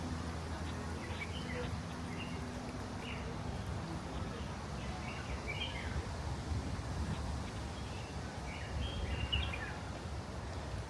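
Small birds chirping in scattered short calls over a steady low outdoor rumble, with a faint low hum that fades out in the first few seconds.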